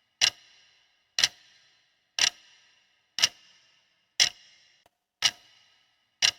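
Countdown-timer clock ticks, a sound effect: one crisp tick each second, seven in all, each with a brief ringing tail, marking the answering time for a quiz question.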